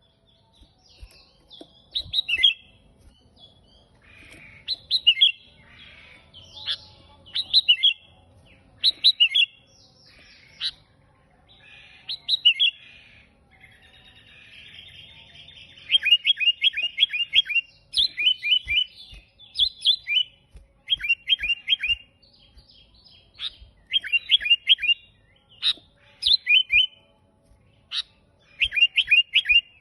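Sooty-headed bulbul singing repeatedly in short phrases of quick notes, which become fast runs of rapid descending notes from about halfway through.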